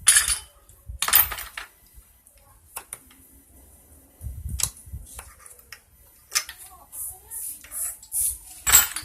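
Hand tools and metal engine parts clinking and knocking during a motorcycle engine teardown: half a dozen sharp, scattered clicks, with a few short high hissing sounds near the end.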